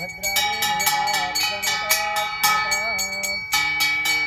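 Ritual bells struck in a fast, even rhythm, about four or five strokes a second, with a steady ringing tone, over a wavering melody.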